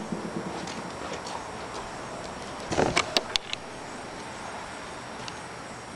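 Steady outdoor background hiss, with a brief cluster of sharp clicks and knocks about three seconds in, handling noise from the camera being picked up and moved.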